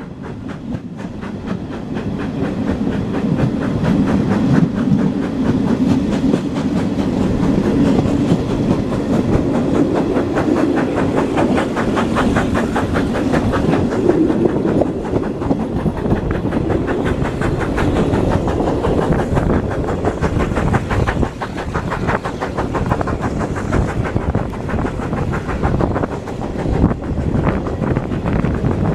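Steam-hauled passenger train running along the line, heard from an open carriage window: a fast, even rhythm of beats over a steady rumble, fading in over the first couple of seconds.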